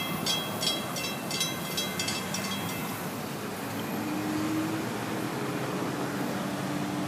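Railroad grade-crossing bell ringing about three strokes a second while the gate arms rise, stopping about three seconds in. Underneath, a steady rumble from the departing train and road traffic, with a faint engine hum from vehicles starting across later on.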